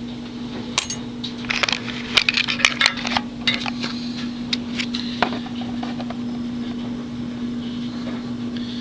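Small lock pins clicking and clinking as they are handled and set down on a hard surface: a run of light metallic ticks in the first five seconds, thickest around two to three seconds in, over a steady low hum.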